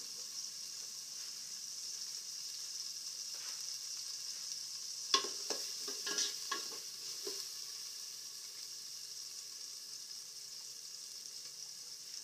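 Ginger and onion sautéing in a metal pot, a steady sizzle throughout. About five seconds in, a metal spoon stirs them, clinking and scraping against the pot several times over two seconds or so.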